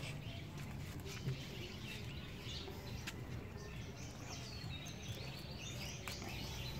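Small birds chirping in the background over a steady low rumble, with a few soft, sharp clicks scattered through.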